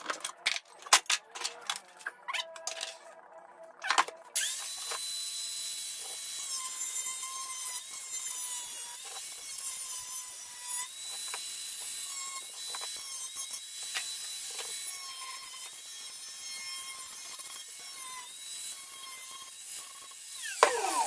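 A run of sharp irregular crackles and clicks for about four seconds. Then a high-speed electric power tool starts abruptly, runs with a steady hiss and a high whine that shifts slightly in pitch, and winds down with a falling whine near the end.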